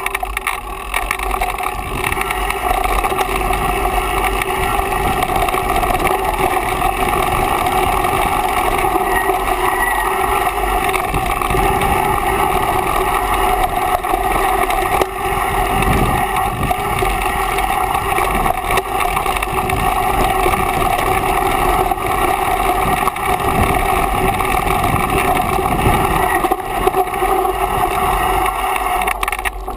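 Mountain bike descending a dirt singletrack, recorded by a camera riding on the bike or helmet. A steady, loud rush of wind on the microphone and rolling noise continues throughout, with frequent small knocks and rattles from bumps in the trail.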